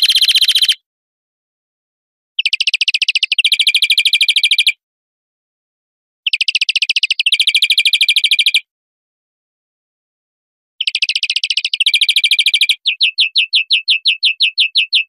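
European greenfinch singing: rapid, high trilled phrases about two seconds long, with short pauses between them. The last phrase runs into a slower, even trill of about seven notes a second.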